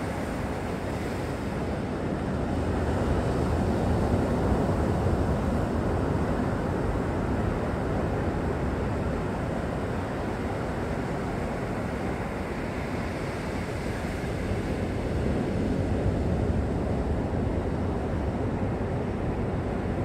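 Ocean surf washing against a rock shelf, mixed with wind rumbling on the microphone. It is a steady rush that swells about two seconds in and again near fifteen seconds.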